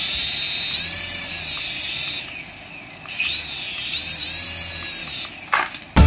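Toy RC helicopter's small electric motors and rotor whirring with a high whine whose pitch wavers up and down; the sound eases off about halfway through and picks up again, with a brief knock near the end.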